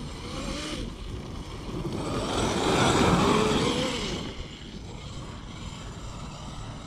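Electric RC monster truck (Traxxas XRT) running with its 800 kV brushless motor, a wavering motor whine and tyre rush that swell to a peak about three seconds in as it passes close, then fall away.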